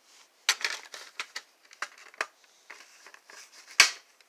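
Handling noise from a plastic fire alarm sounder strobe and its parts: irregular rustling and light clicks, then one sharp knock near the end.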